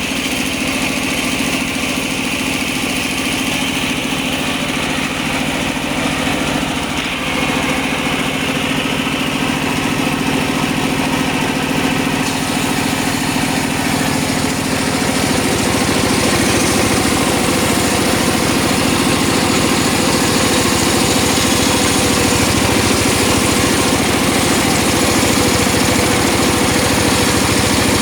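Engine-driven circular sawmill machine running steadily with a constant engine note. From about halfway through it gets a little louder and fuller.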